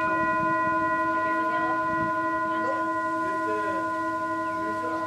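Tibetan singing bowl holding liquid paint, ringing after a strike from a felt mallet: a steady tone of several pitches at once that fades only slightly.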